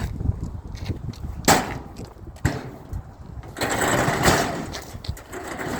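Metal work noise from stripping the cast-aluminium part off a barbecue. There are two sharp metal clanks, then about a second and a half of rough rattling and scraping.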